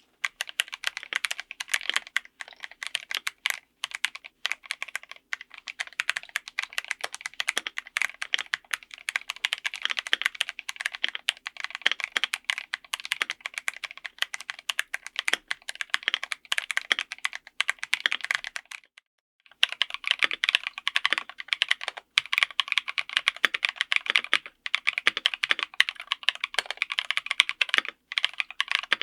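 Fast, continuous typing on a mechanical keyboard, a rapid run of key clacks with a short break about 19 seconds in before the typing starts again.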